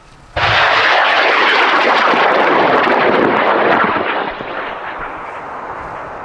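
High-power rocket motor igniting and lifting off: a sudden loud, crackling roar about half a second in that holds for some three and a half seconds, then fades as the rocket climbs away.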